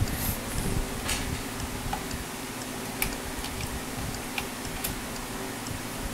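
Light clicks and ticks of fingers handling the strings and metal saddles of a Floyd Rose floating bridge, over a steady low hum.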